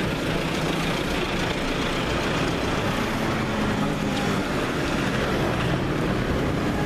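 Street traffic: motor scooters and cars running past in a continuous din of engines and road noise, with one engine note standing out for a couple of seconds near the middle.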